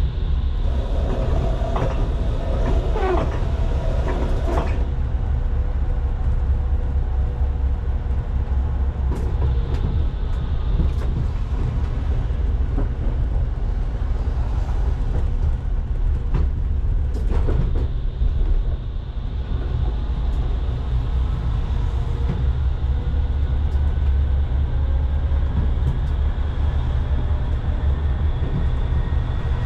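Coupled pair of Pragoimex T3R.EV trams running, heard from the cab: a steady deep rumble of wheels on rail, with the wheels screeching briefly in the first few seconds. Near the end the electric traction drive's whine rises in pitch as the tram picks up speed.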